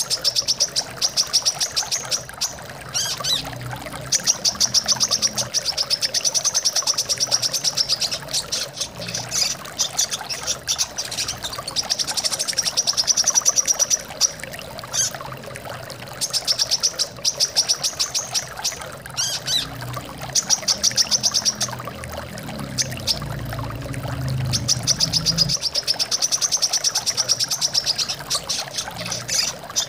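Brown-throated sunbird song: high, rapid trills lasting a second or two, repeated every few seconds, over a steady sound of running water.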